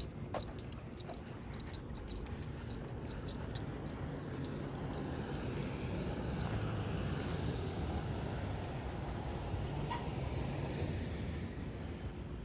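A vehicle passing: a low steady rumble that swells through the middle and fades again. Light metallic jingling clicks in the first few seconds.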